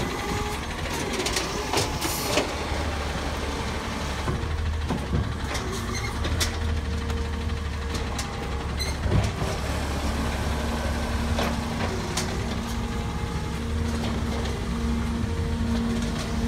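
Natural-gas automated side-loader garbage truck working the curb: the engine runs steadily while the lifting arm dumps a cart and grabs the next, with several sharp clanks. A steady hum from the hydraulics sets in about ten seconds in as the arm works again.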